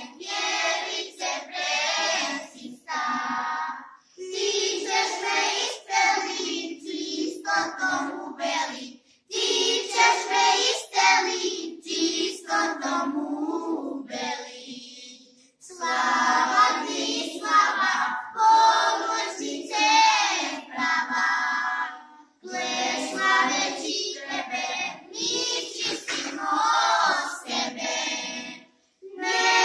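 A group of children singing a hymn together, in phrases broken by short pauses.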